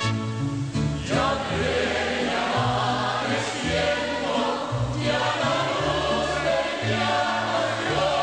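Religious choral music: a choir singing a hymn over instrumental backing with a moving bass line.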